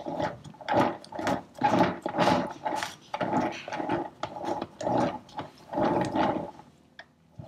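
A cake turntable being turned in short pushes while an icing spatula scrapes buttercream around the cake, a rasping mechanical scrape about twice a second that stops shortly before the end.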